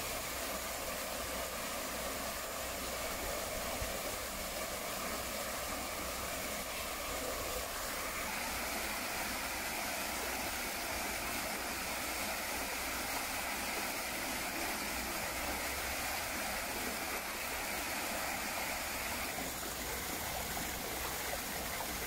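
Steady rush of running water from a small waterfall pouring over a low stone wall into a pool, with the creek running over rocks.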